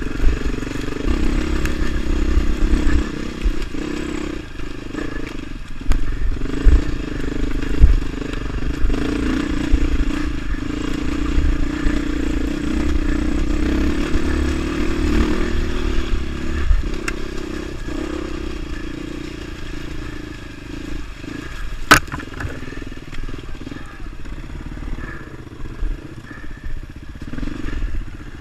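Beta 450 RR single-cylinder four-stroke dirt bike engine running under way on a rough trail, with thumps and clatter from the bike over rocks and roots. The engine note eases off in the second half as the bike slows, and there is one sharp crack late on.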